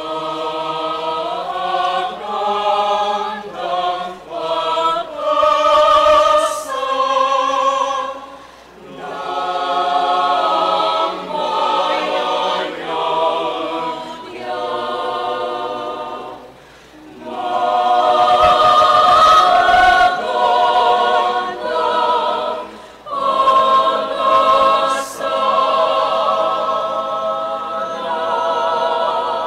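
Mixed teachers' choir singing a cappella in several-part harmony, in long held phrases with short breaks between them; the fullest, loudest swell comes about two-thirds of the way through.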